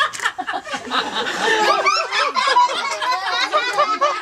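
Laughter and babbling chatter with no clear words, quick rising and falling.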